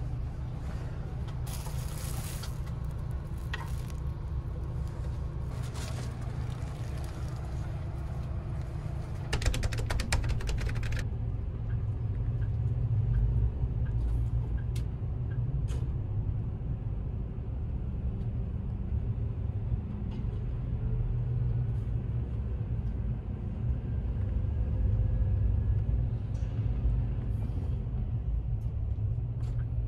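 Steady low rumble of a highway coach's engine heard from inside the cabin. About nine seconds in comes a rapid rattle of clicks lasting a second or two, after which the rumble is a little louder.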